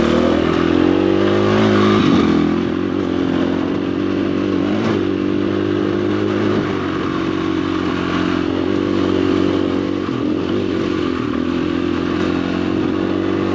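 Dirt bike engine running under way on a trail. The revs climb over the first two seconds, ease off, then hold fairly steady with small rises and falls.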